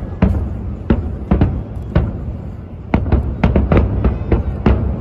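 Aerial fireworks bursting: an irregular run of sharp booms and cracks, about a dozen in five seconds, some in quick clusters, over a continuous low rumble of distant blasts.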